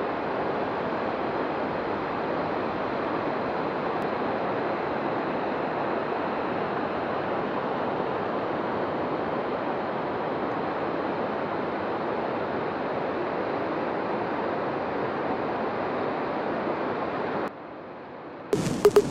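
Steady rush of a fast mountain torrent tumbling through a rocky gorge. Near the end it drops away and a few sharp clicks begin.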